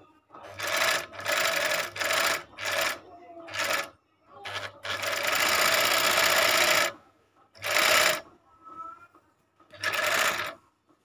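Mini portable overlock (serger) machine, a Wiki FN10-4D, running in stop-start bursts as its foot pedal is pressed and released while it stitches a fabric edge. Several short runs come in the first four seconds, then one longer run of about two seconds in the middle, then two brief runs near the end.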